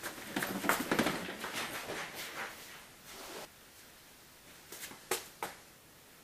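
Hurried footsteps and scuffling on a wooden staircase, with a burst of rough, irregular movement noise that dies away after about three and a half seconds. Near the end come two short, sharp knocks.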